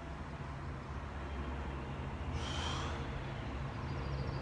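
Low steady background hum, with one short breathy exhale a little past halfway through.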